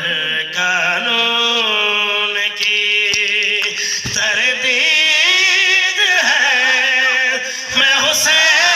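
A man's voice chanting a verse in long, wavering held notes into a microphone, in the melodic style of a qasida recital, with short pauses between phrases.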